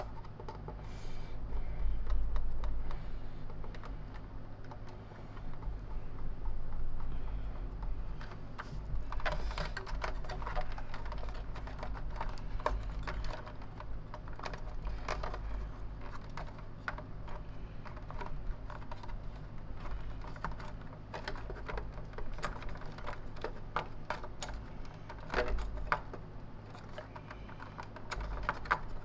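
Irregular light clicks, taps and rattles of hands handling the plastic housing, power cord and wiring of a Lindhaus HF6 canister vacuum being reassembled, over a steady low hum.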